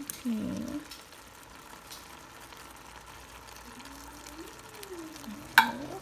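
Mostly quiet while thick tomato sauce slides out of a metal can onto shrimp, then one sharp knock of the emptied can near the end.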